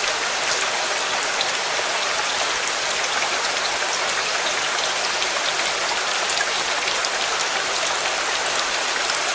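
Steady rain falling: a dense, even hiss with many small drop ticks scattered through it.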